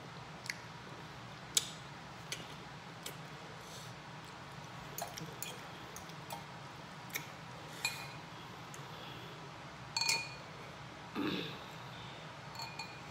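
Metal fork clinking and tapping against a glass bowl while noodles are stirred and twirled: scattered sharp clinks, a few ringing briefly, the loudest about ten and eleven seconds in.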